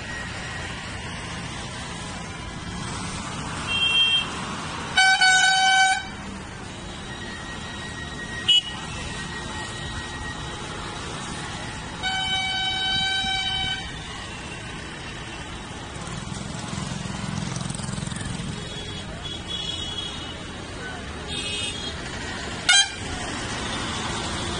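Car horns honking in traffic, heard from inside a car: a honk of about a second some five seconds in, a longer one of nearly two seconds about twelve seconds in, and a few shorter toots, over steady road noise. Two sharp clicks stand out.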